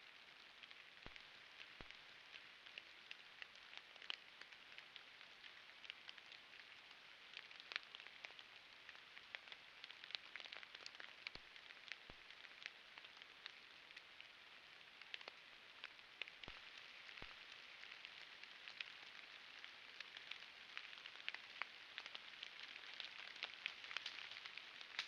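Faint, irregular patter of raindrops over a steady hiss, with a few soft low thumps in pairs.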